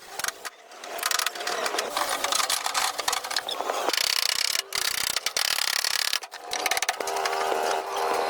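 Mechanical clicking and ratcheting of workshop repair work, broken by abrupt cuts, with a steady whine coming in near the end.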